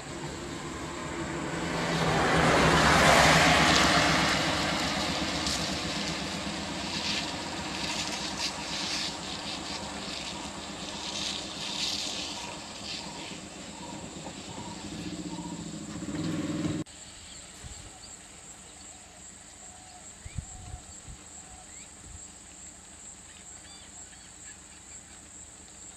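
Road vehicle engines and tyres swelling close by over a few seconds, then running more quietly until the sound cuts off suddenly. Afterwards, steady high chirring of insects with one short thump.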